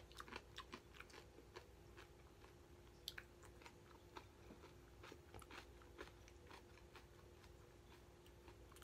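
Faint eating sounds of a man having kimchi hot pot: chewing, with scattered small irregular clicks.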